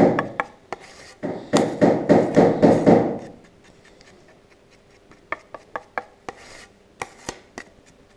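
Spreader scraping and smearing a mix of fibreglass and universal body filler across a steel mixing plate: quick scraping strokes, about three a second, for the first three seconds, then a few lighter scrapes and taps.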